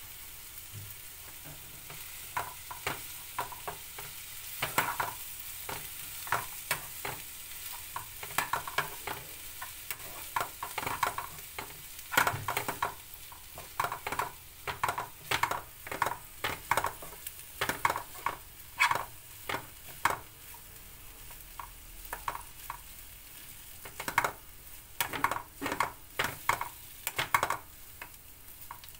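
Spoon stirring rice in a nonstick frying pan, irregular scrapes and clinks against the pan, busier in the second half, over a steady sizzle of frying.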